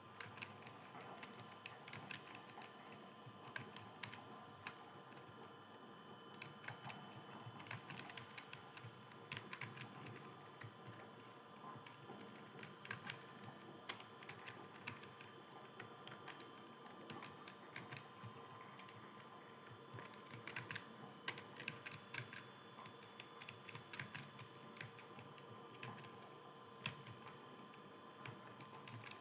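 Fast typing on a computer keyboard: a quick, uneven run of faint key clicks, with louder keystrokes here and there.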